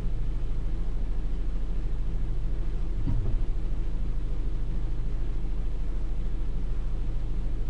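A steady low hum and rumble with a brief louder bump about three seconds in.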